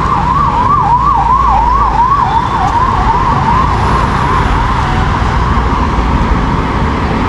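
An emergency vehicle's siren yelping in a fast rise-and-fall, about three sweeps a second, fading away a little past halfway. Under it is a steady rumble of traffic and wind.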